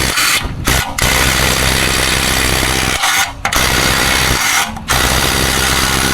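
Impact drill running in long bursts with brief pauses between them, working bolts out of aluminum shutters.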